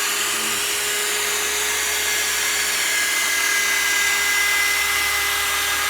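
Electric drill with a sandpaper pad running at a steady speed, wet-sanding a plastic headlight lens: an even motor whine with a few fixed pitches and a sanding hiss.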